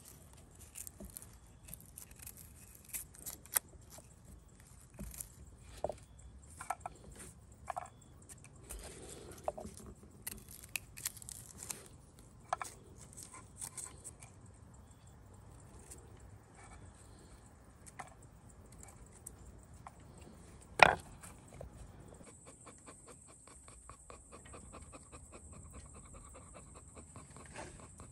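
Kitchen preparation sounds: scattered light clicks and knocks of utensils and cookware, with one louder knock about 21 seconds in. From about 22 seconds a faint steady crackling hiss sets in.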